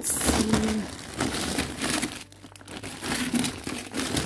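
Plastic bags and packages of frozen food crinkling and rustling as they are handled and shifted in a freezer drawer, easing briefly about two seconds in.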